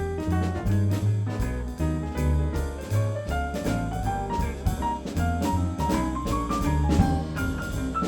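Live jazz big band playing an instrumental passage, with piano, a walking bass and a drum kit keeping time on the cymbals. A rising line of notes climbs through the middle.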